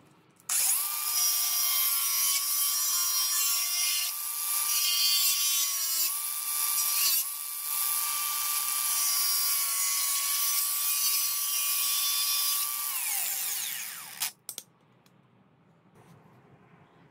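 A handheld cordless power tool runs at high speed with a steady high whine while cutting a plastic bottle. Its speed sags briefly about six seconds in, and it winds down with a falling pitch near the end. A couple of sharp clicks follow.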